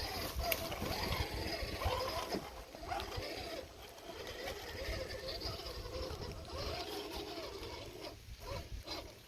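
Small electric motors of RC rock crawler trucks whining, the pitch rising and falling as the throttle is worked, over a steady hiss of background noise.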